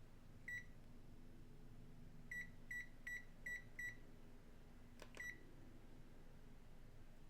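Short high keypress beeps from a ZOYI ZT-R02 thermal imaging multimeter as its menu buttons are pressed: a single beep, then five quick beeps about three a second, then a sharp click and one last beep.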